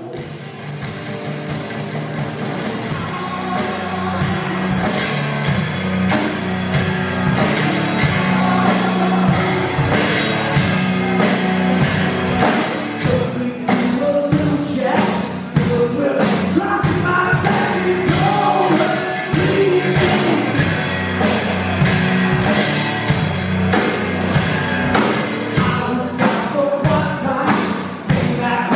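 Live blues-rock band: electric guitar and a drum kit played with sticks, with a man singing, fading in over the first few seconds.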